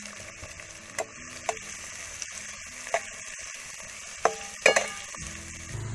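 Chopped onion sizzling in hot oil in an aluminium kadhai, just added to the pan. A metal spatula stirs it, scraping and knocking against the pan a few times, loudest about four and a half seconds in.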